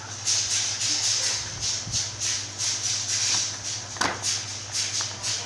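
Brown paper shopping bag rustling and crinkling as a cat thrashes around inside it, in quick, irregular bursts several times a second.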